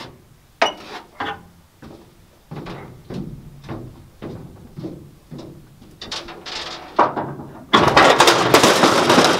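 Sharp metal knocks and clanks, roughly one every half second, as a bar works loose the steel drop side of a Tatra truck's flatbed. Near the end comes a loud metal crash and clatter lasting over a second: the side panel dropping down.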